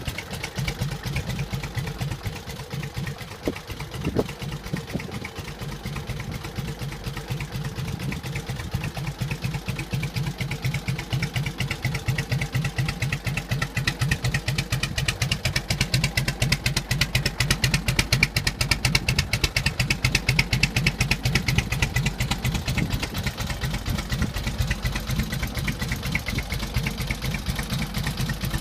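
1946 Indian Chief's side-valve V-twin engine idling with an even, loping beat, running a little faster and louder through the middle before settling back.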